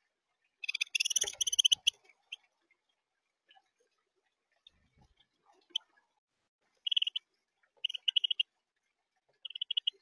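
House finches chirping at a seed feeder: a burst of rapid high chirps about a second in, then three short bursts of chirps near the end.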